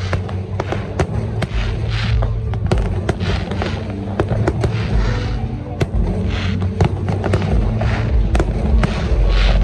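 Aerial fireworks going off in quick succession: many sharp bangs and crackles with bursts of hiss, over a steady low rumble.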